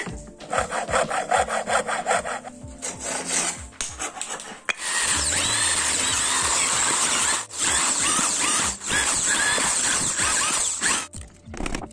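A thin saw blade cutting a wooden block in quick, even strokes for the first few seconds. Then, about five seconds in, an electric drill runs steadily, boring holes in the wood. It drops out briefly twice and stops near the end.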